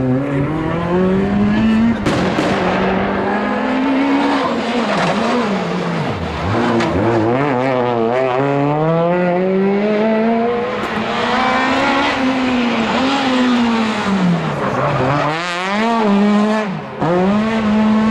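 Rally car engine revving hard through the gears. The pitch climbs in repeated sweeps, drops sharply at each shift or lift, and the engine stays loud with tyre noise underneath.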